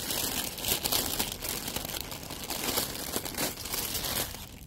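Packaging being pulled open by hand: wrapping rustling continuously, with many small crackles.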